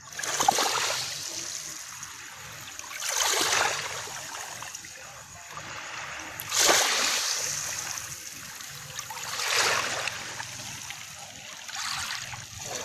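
Small waves washing up onto a sandy beach, five in a row about three seconds apart, each a splash that fades into a hiss as the water runs back.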